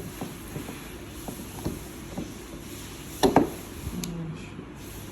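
Small clicks and taps of a screwdriver turning a jammed plastic headlight adjustment knob under pressure, with one louder knock about three seconds in.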